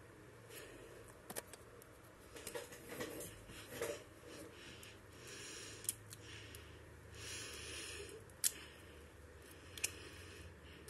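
Hard plastic action figures handled by hand: rustling and a few sharp clicks as plastic parts are turned and a shell piece is fitted.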